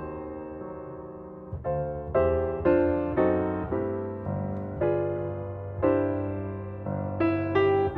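Background piano music: slow, gentle chords struck one after another, each ringing and fading.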